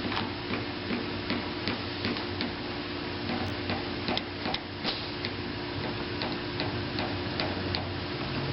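Light, quick tapping of a small hammer on a knockdown tool against a car body panel, about three taps a second, working down a high spot in a hail dent repair. A faint steady hum runs underneath.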